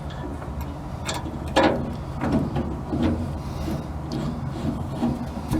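Irregular metallic clicks and knocks of an Allen wrench and hand working a metal windshield prop fastener as it is tightened, over a steady low background rumble.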